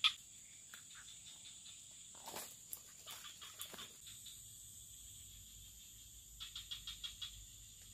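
Swamp ambience: a steady high drone of insects, with a frog's rapid run of clicking calls at the very start and again near the end, and a few soft rustles around the middle.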